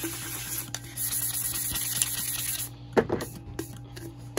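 An 80-grit sanding block rubbed back and forth on a stainless steel tumbler, a steady raspy scratching as the metal is scuffed up for paint to grip. The scratching stops about two and a half seconds in, followed by one sharp knock and a few light taps as the tumbler is handled.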